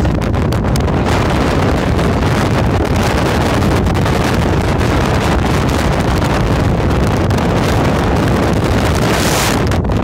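Strong mountain wind blowing across the microphone: a loud, steady rumble and hiss, with a short burst of sharper hiss near the end.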